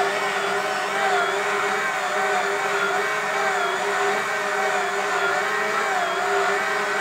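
Karaca Mastermaid Chef Pro 1750 W stand mixer's motor running steadily as its dough hook kneads mantı dough. The motor's whine holds one steady tone, with higher tones wavering slightly up and down in a regular rhythm of roughly once a second.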